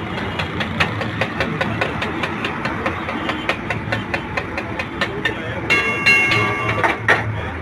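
Fast, even clicking, about four or five clicks a second, over a steady background din, with a brief high steady tone a little before the end.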